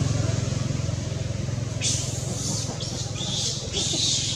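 Low rumble of a passing motor vehicle's engine, fading away; from about two seconds in, a series of short high chirps.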